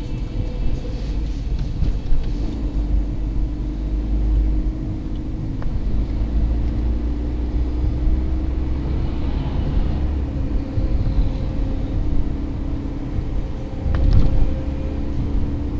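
Steady road and engine rumble inside a moving car's cabin, swelling briefly louder about 14 seconds in as a lorry passes close alongside.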